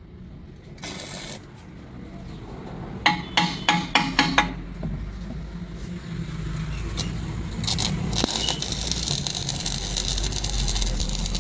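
Stick arc welding on steel: a few sharp metallic clicks and taps around three to four seconds in, then from about seven seconds the welding arc crackles and hisses steadily, growing louder, over a low hum.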